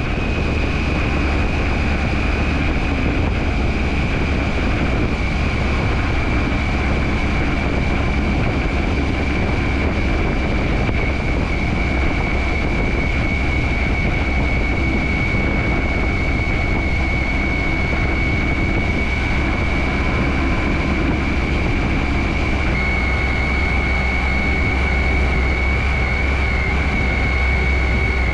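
Triumph Tiger 800 inline-triple motorcycle running steadily at road speed, with a steady engine drone, wind and road noise, and a constant high whine that drifts slightly lower in pitch and steps down a little about 23 seconds in.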